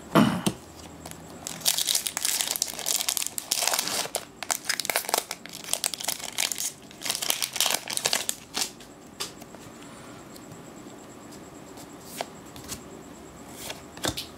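Foil wrapper of a Magic: The Gathering booster pack crinkling and tearing as it is opened by hand, in dense bursts over several seconds. It begins with a short thump and ends with a quieter stretch of a few light clicks.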